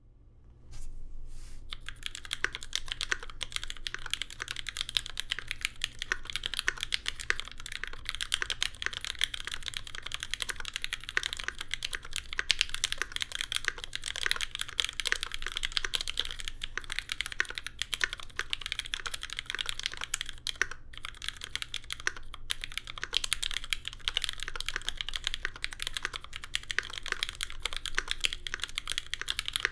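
Fast, continuous typing on a Keycult No2 mechanical keyboard with lubed Cherry MX vintage Black linear switches, an aluminium plate and GMK keycaps: a dense run of key presses starting about a second in, with a couple of brief pauses about two-thirds of the way through.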